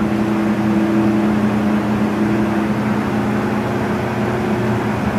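Acra/Leader 17-inch-swing engine lathe running, with its carriage on power feed: a steady hum.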